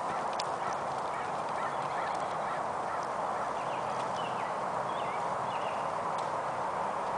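A horse's hoofbeats on a dirt arena, faint and fading as the horse moves away, with short bird calls over a steady background hiss.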